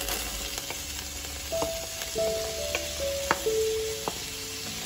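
Sliced onions tipped into hot oil in a pan, the oil sizzling, with several light clicks as pieces and the plate knock against the pan. Soft background music with held notes plays throughout.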